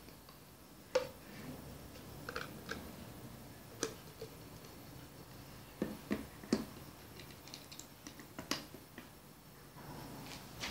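Scattered clicks and light knocks of a wooden electric mosquito repellent unit and its plastic refill bottle being handled and fitted together, the sharpest about a second in and a quick cluster around six seconds in.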